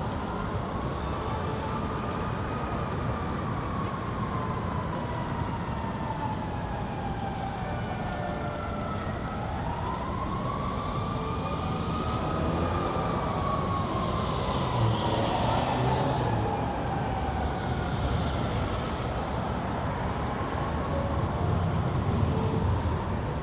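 Emergency vehicle siren in a slow wail, its pitch rising and falling about every eight to nine seconds, over steady city traffic noise.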